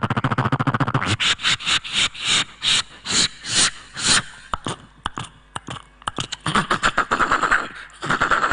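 Vocal sound effects made close into a handheld microphone by a mimicry artist. A buzzing, engine-like drone cuts off about a second in. Then come a series of breathy hissing bursts, a quick patter of clicks, and a short hiss near the end.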